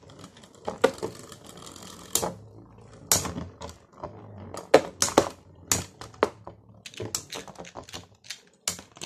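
Two spinning Beyblade tops, a Beyblade Burst top and a metal Zero-G top, clacking against each other and the plastic stadium walls in irregular sharp clicks.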